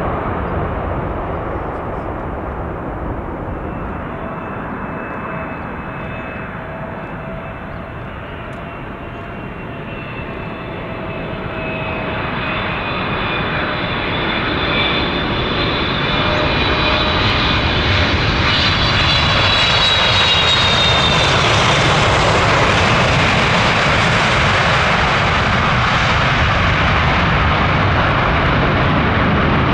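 Jet airliner engines: a rushing roar with a thin whine on top, growing louder over about ten seconds as the aircraft comes closer, then holding steady.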